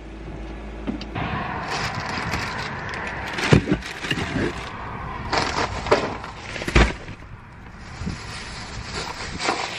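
Shopping cart being unloaded into a car's open rear cargo area: clatter and knocks from handling, with two loud thuds about three and a half and seven seconds in.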